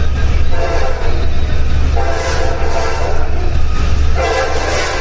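Passenger train running at full speed with a heavy steady rumble, its horn sounding in long blasts one after another, about three within these few seconds.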